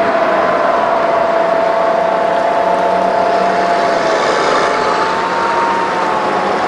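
Convoy of eight-wheeled armored vehicles driving past: a steady, loud din of engines and tyres with a held whine that drifts slightly in pitch.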